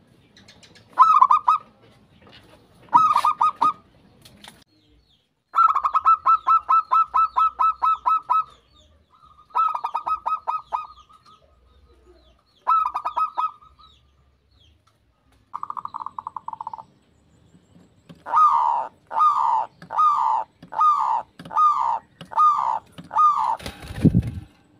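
Zebra doves (perkutut) cooing in repeated phrases of quick, stuttering notes, one a long rapid trill, and near the end a run of seven separate coos. A brief loud falling sound follows just before the end.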